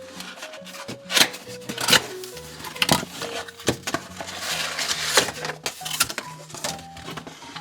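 Light background music, with a string of clicks and knocks from plastic toy pieces and packaging being handled as a toy box is opened.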